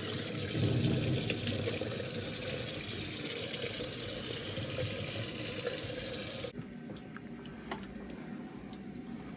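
Steady rush of running water that cuts off suddenly about six and a half seconds in, leaving a quieter background with a few light clicks.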